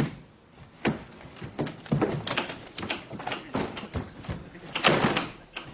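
A door being opened and pushed shut, with irregular knocks, clicks and scuffs of someone stumbling in; the loudest, a longer scrape, comes about five seconds in.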